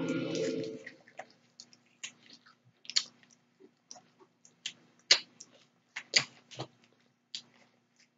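Close-up eating sounds: food being chewed and bitten, with scattered sharp crunches and wet mouth clicks at irregular intervals. A louder humming sound runs through the first second and then stops.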